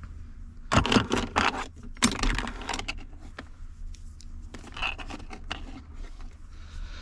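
Small hard objects clicking and clattering as parts or tools are handled, in two quick flurries about a second and two seconds in, with a few fainter clicks later.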